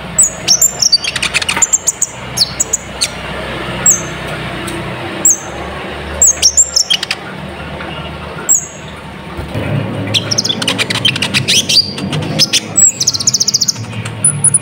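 Sunbird (kolibri ninja) singing: repeated sharp, high, down-slurred chirps, then a quick rattling trill about two-thirds of the way through and a short buzzy trill near the end, a song full of imitated phrases played as a lure call.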